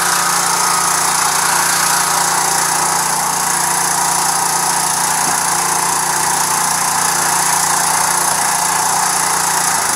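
A small engine driving a pump on a box truck runs steadily at a constant speed while used cooking oil is drawn through the hoses.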